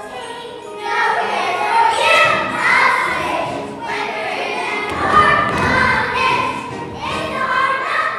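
A chorus of young girls singing together with musical accompaniment, in phrases broken by short pauses, with a low thump-heavy stretch about five seconds in.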